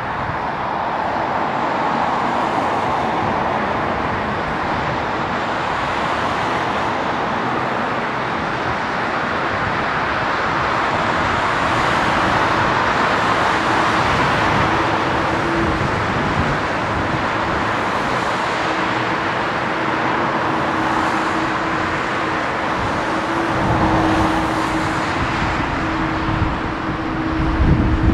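Twin jet engines of a Boeing 787-9 Dreamliner at taxi power as the airliner rolls past, a steady rushing whine. A steady hum joins in about halfway through, and low rumbling swells come in near the end.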